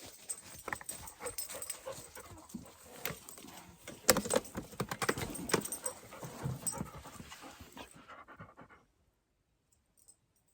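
A black Labrador retriever panting close to the microphone, mixed with sharp handling knocks, the loudest about four seconds in. The sound stops abruptly shortly before the end.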